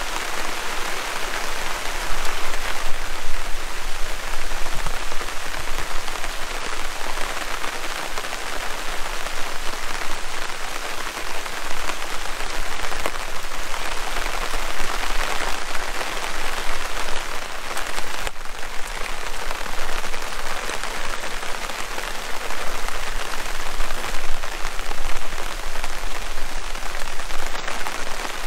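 Heavy rain pouring down: a dense, steady hiss of drops that swells and eases every few seconds.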